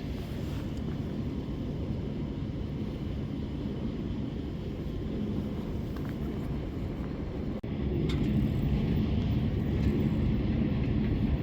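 Steady low outdoor rumble with no speech, a little louder after a brief break about seven and a half seconds in.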